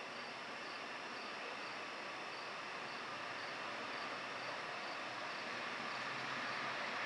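Insects chirping faintly, about two chirps a second, over a steady background hiss that slowly grows louder toward the end as a freight train approaches.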